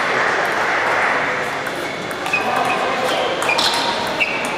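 Table tennis ball clicking sharply off paddles and the table three or four times in the second half, over the steady murmur of a busy playing hall with other tables in play.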